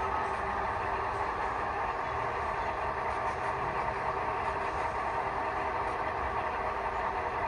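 Sound-equipped model diesel locomotives running slowly, their onboard speakers playing a steady diesel engine sound with several held tones.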